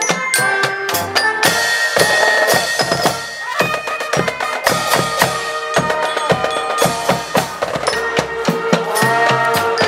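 Marching band playing: brass horns over a steady beat of bass and snare drums.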